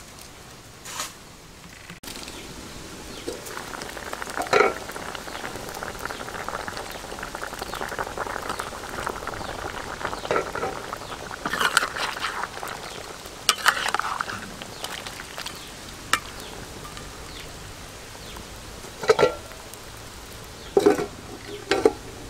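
Broth of fish and duck eggs bubbling and sizzling in a steel wok over a wood fire, starting about two seconds in. A metal ladle stirring the pot clinks and knocks against the wok now and then, with a few louder knocks near the end.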